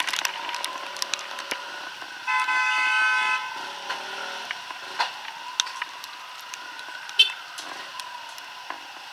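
A vehicle horn honks once, held for about a second, in stalled traffic, with a shorter beep about two-thirds of the way through. Underneath runs a faint engine hum that slowly rises and falls, and frequent small ticks of raindrops hitting the camera.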